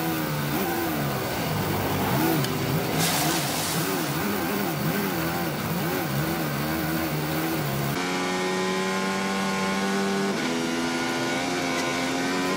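Onboard sound of a 2014 Lotus Formula 1 car's Renault turbo V6. The engine note wavers up and down as the car slides off a wet track onto the grass, with a brief rush of noise about three seconds in. After a cut, the engine runs at a steady high note, then drops in pitch at a gear change about two seconds later.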